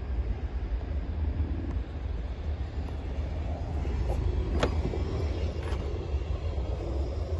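Wind rumbling on the microphone, with one sharp click about halfway through as the Tesla Model Y's rear door is unlatched and opened.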